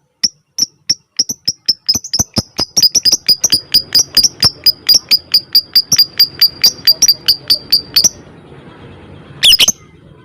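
Lovebird ticking call (ngetik): a rapid train of short, sharp high chirps that speeds up from a few a second to about six a second, then breaks off about eight seconds in. One louder, harsh squawk follows near the end.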